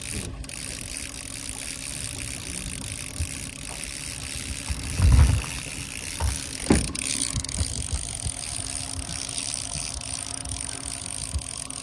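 Boat motor running steadily, with a heavy low thump about five seconds in and a sharper knock a moment later.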